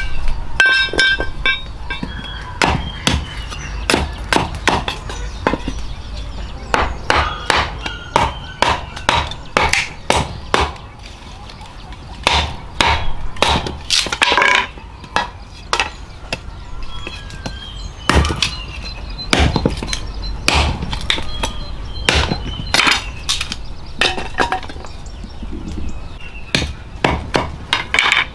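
Machete chopping and splitting wood against a log chopping block: a long series of sharp knocks at uneven spacing, sometimes several in quick succession, with short pauses between.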